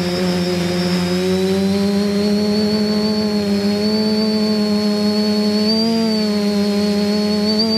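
Quadcopter's brushless motors and propellers humming steadily in flight, close up from the camera mounted on the craft, with a thin high whine above the hum. The pitch rises a little about six seconds in and again near the end as the throttle changes.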